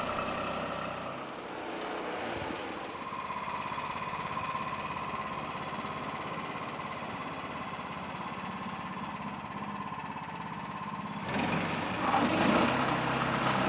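Portable band sawmill's small engine running steadily under a fast even pulse, with a steady whine; the sound changes abruptly and gets louder about eleven seconds in.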